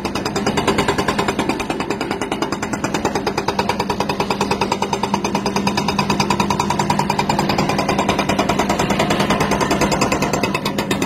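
MTB 155 hydraulic breaker on a Hidromek HMK230LC excavator hammering a rock in a rapid, steady train of blows, with the excavator's engine running underneath.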